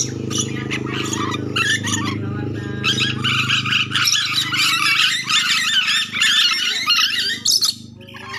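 Ornate lorikeets (nuri dora) giving rapid, shrill screeching chatter, densest from about three seconds in to near the end, over a steady low hum.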